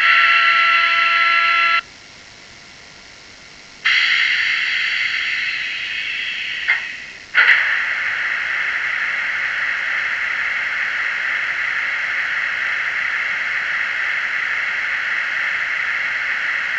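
Sound decoder of an OO-gauge Class 73 model locomotive playing its electric-mode sounds through its small speaker. It starts with a loud horn-like tone lasting under two seconds. About four seconds in, a hissing electric motor sound starts up, there are two sharp clicks around seven seconds, and then it runs on steadily.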